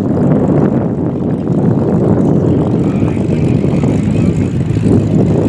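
Propeller aircraft engine running loud and steady, with a faint higher whine entering about halfway through.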